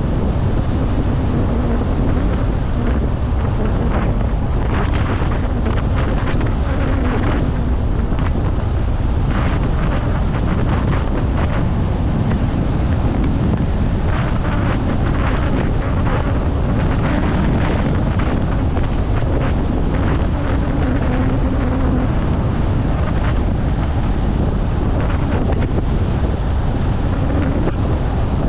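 Wind buffeting the microphone over a steady low rumble, loud throughout.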